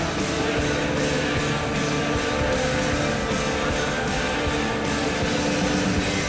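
Rock song with electric guitar and a steady beat, played as a hockey goal song.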